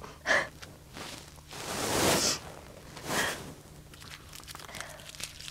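A woman crying: a short sob near the start, a long breathy sob swelling and fading about two seconds in, and another sob about three seconds in, followed by faint rustling.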